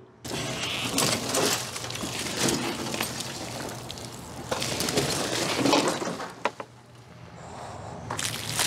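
An old sofa bed's metal frame and rotted upholstery being hauled about and set down on pavement: an irregular run of clattering, crunching knocks, loudest a little past halfway.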